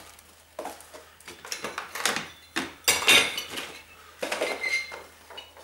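Small hard objects clinking and clattering as they are rummaged through and dropped, with a run of sharp knocks, the loudest about three seconds in, and a short metallic ring near the end.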